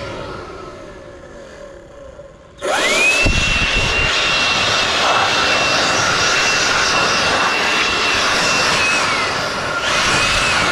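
Stihl MSA 160 C battery chainsaw's electric motor running under the trigger: it winds down at first, then about two and a half seconds in spins up quickly to a steady high whine that holds for about six seconds. It then slows as the trigger is let go and spins up again near the end.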